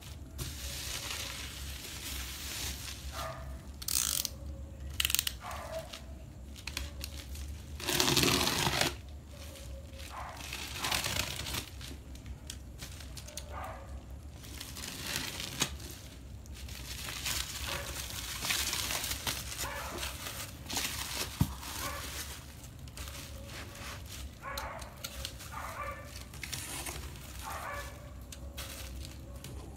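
Plastic bubble wrap and packing tape being slit with a box cutter and pulled apart: irregular crinkling and rustling, with one loud rip about eight seconds in.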